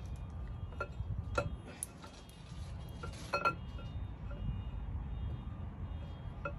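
Steel camshaft being fed into an LS V8 block's cam tunnel, its lobes and journals knocking against the cam bearings in about five light metallic clinks that ring briefly, the loudest about a second and a half and three and a half seconds in, over a low steady hum.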